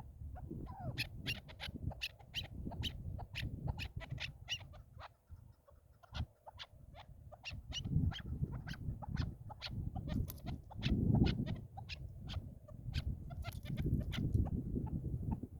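Chukar partridges calling: a rapid, uneven series of short clucking notes over a low rumble.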